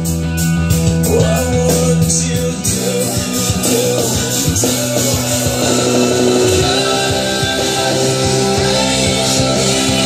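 A rock song playing loud through a 2022 Harley-Davidson Road Glide Special's aftermarket Cicada Audio speakers, front fairing and rear, driven by a Cicada BDA1400.4 amplifier.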